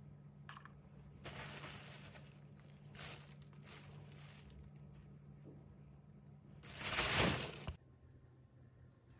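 Plastic bag crinkling and rustling in several short bursts, the loudest and longest about seven seconds in, over a faint steady low hum.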